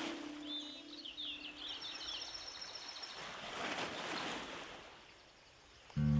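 Background music fades out into a soft nature ambience: a quick run of bird chirps over a gentle rushing noise that swells once and dies away to near silence. Strummed acoustic guitar music starts just before the end.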